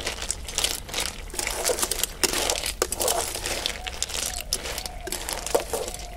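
Snails in their shells being stirred in a metal kadai with a perforated metal skimmer: shells clattering and the ladle scraping against the pan, irregular clicks over a steady sizzle of the simmering curry.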